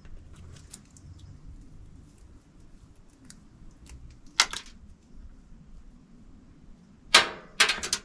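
Packaging of a new furnace igniter being handled and opened: light clicks and faint rustling, a sharp rustle about halfway through, and two louder rustles near the end.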